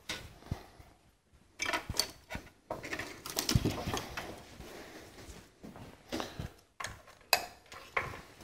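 Scattered light clicks and clatter of hand tools being handled, irregular and a few at a time with short pauses, while a magnetic pickup tool is fetched to lift a spark plug out of its well.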